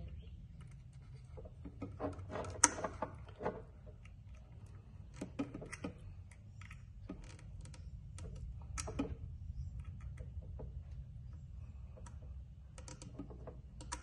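Scattered small clicks and taps of wire spade connectors being pushed onto an electric horn's terminals while the plastic horn is handled, over a low steady hum.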